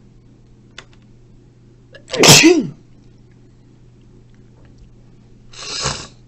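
A person sneezes loudly once about two seconds in, a breathy burst with a voiced cry that rises and then falls in pitch. Near the end a second, shorter breathy rush of air swells and fades.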